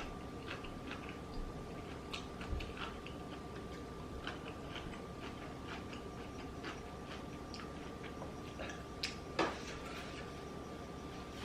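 Close-miked eating: chewing with irregular small wet mouth clicks and smacks, one louder click about nine seconds in.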